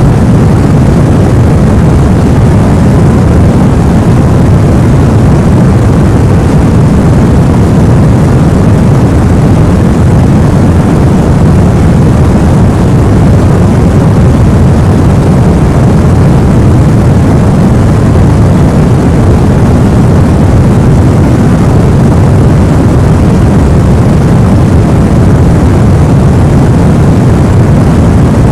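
Steady, unchanging noise with a deep rumbling weight to it and no rhythm or pitch: a continuous white-noise track for lulling a baby to sleep.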